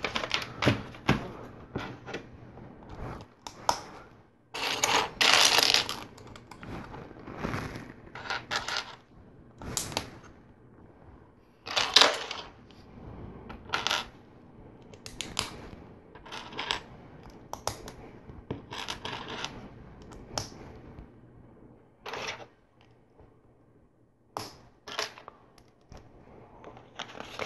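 Plastic LEGO bricks clicking and clattering as hands pick through a pile of loose pieces and press plates together, in many irregular sharp clicks. A longer clatter comes about five seconds in and another near twelve seconds.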